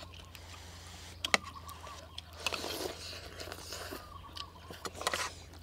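People eating: slurping glass noodles and chewing, with a few sharp clinks of metal spoons against plates, about a second in and again near the end.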